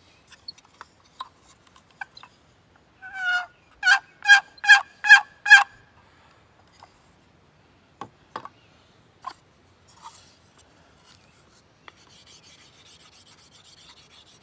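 Wooden turkey box call, its lid freshly chalked, played in a short series: a lower lead-in stroke, then five sharp yelps about two and a half per second. A few clicks of the call being handled follow, and faint rubbing near the end.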